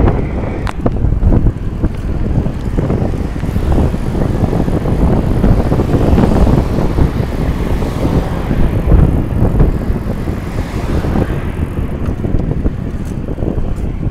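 Wind buffeting the microphone of a camera mounted on a moving bicycle, a loud, fluctuating rumble, over the hiss of tyres rolling on asphalt, with a few light clicks near the start and the end.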